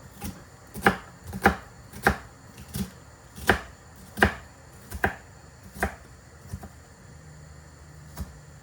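Knife chopping on a cutting board: about nine firm, evenly spaced strokes, one every 0.7 s or so, then a pause and a last stroke near the end.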